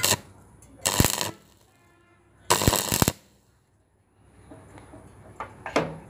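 Stick welding arc on thin square steel tube, crackling in four short bursts of up to half a second each: the rod being struck to lay quick tack welds on the thin metal.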